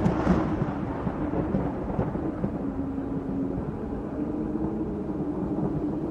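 Thunder rumbling and dying away after a loud clap, settling into a steady low rumble.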